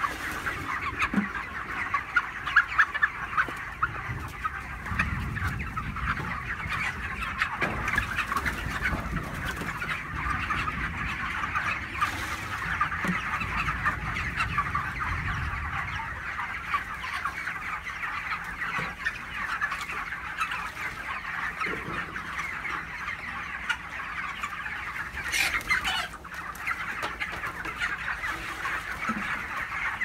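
A large flock of broiler chickens clucking and peeping in a dense, continuous chatter.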